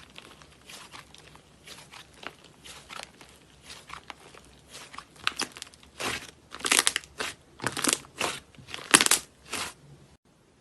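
Crunchy slime being pressed and squeezed by hand: a run of short crackling crunches, louder and closer together from about halfway, stopping suddenly just before the end.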